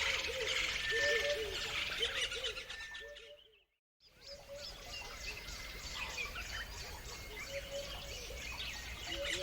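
A chorus of songbirds chirping and trilling, with a lower call repeating underneath. The sound fades out to silence a little over three seconds in and fades back in about a second later.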